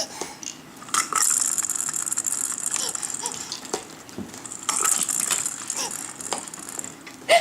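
A toy rattling in two spells of about two seconds each, a dense, rapid rattle. A short pitched baby vocal sound comes near the end.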